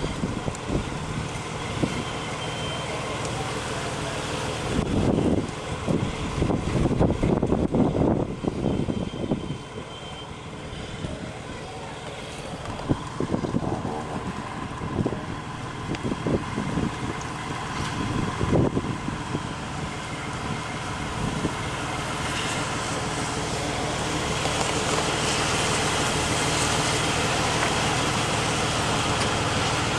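A fire truck's diesel engine idling steadily, with irregular gusts of wind rumbling on the microphone about five to nine seconds in and again near eighteen seconds. A broad hiss grows louder over the last third.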